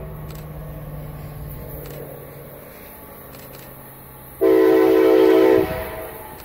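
Union Pacific EMD SD70AH-T4 locomotive approaching with a low, distant rumble. About four and a half seconds in it sounds its raised-letter Nathan K5LA five-chime horn in one loud blast of a little over a second, part of its signal for the grade crossing.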